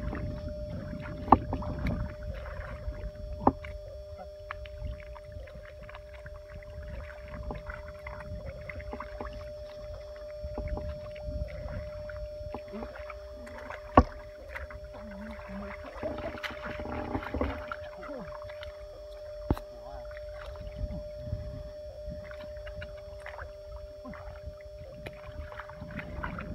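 Hands sloshing and squelching through shallow muddy water and soft mud while groping for fish, with four sharp knocks standing out and a faint steady hum underneath.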